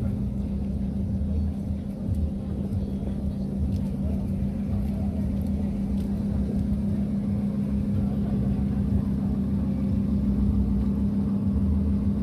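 Steady low vehicle engine rumble with a constant droning hum.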